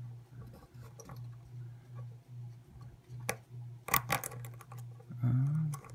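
Small metal clicks and scrapes as circlip pliers work at a tiny retaining clip on a brass padlock cylinder: one sharp click about three seconds in and a quick cluster of clicks about a second later, over a steady low hum.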